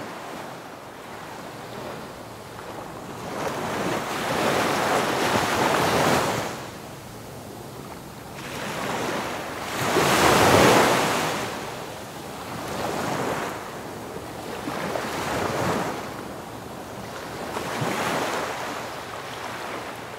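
Ocean surf: waves breaking and washing in, the rush of water swelling and fading every few seconds, loudest about ten seconds in.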